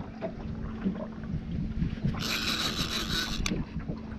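Baitcasting reel whirring in one burst of a little over a second, about two seconds in, ending in a click, while a fish is being played on the line. Wind rumbles on the microphone, and a faint steady hum runs underneath.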